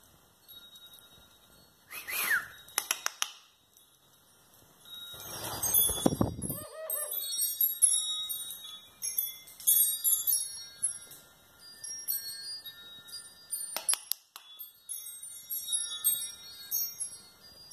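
Wind chimes tinkling: many short, high ringing notes in irregular runs. A few sharp clicks sound near the start and again near the end, and a low rustling burst comes about five seconds in.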